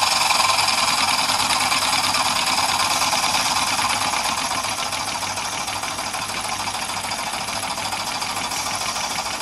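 Jensen 20G model steam engine running on live steam, with a fast, even chuffing and steam hiss from its exhaust through a chuff enhancer and condensate pot. It eases off and gets quieter over the first few seconds as the steam is turned down, then runs steadily at the lower speed.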